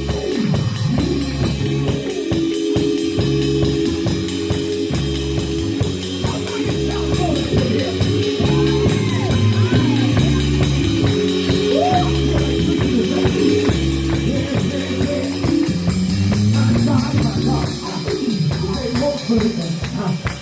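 Church band music: held keyboard chords that change every second or so, over a drum kit.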